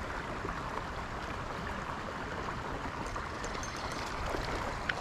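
Small creek running over a riffle: a steady rush of flowing water, with a faint click near the end.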